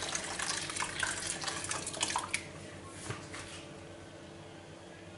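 Hot water poured from an enamel kettle into a stainless steel bowl of bulgur, splashing, to soak the grain. The pouring stops about two and a half seconds in, followed by a few light clinks as the metal bowl is handled on the counter.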